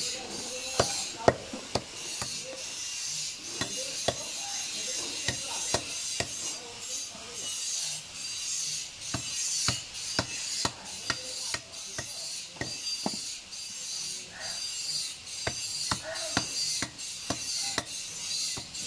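Fish being cut by hand against a bonti blade: irregular sharp knocks and clicks, with scraping and rasping as flesh and bone are worked over the blade.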